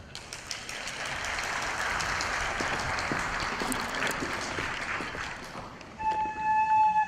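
Audience applauding. About six seconds in the applause stops and a Japanese bamboo flute (shinobue) starts a steady held note.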